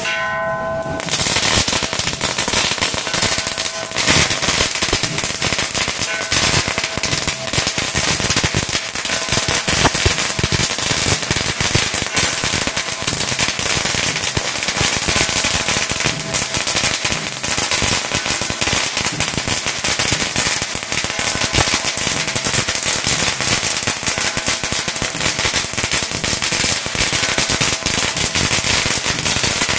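A long string of firecrackers going off in a dense, rapid crackle of bangs, starting about a second in and running on without a break.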